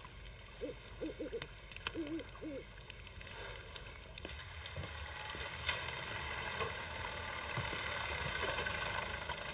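An owl hooting, several short calls in quick succession over the first few seconds. A steady drone of held tones follows and slowly swells louder toward the end.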